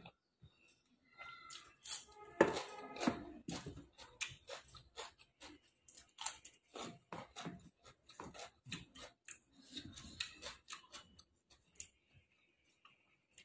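Close-miked eating: a person chewing and crunching crisp food, with many sharp crunches and wet mouth clicks; the loudest bite comes about two and a half seconds in.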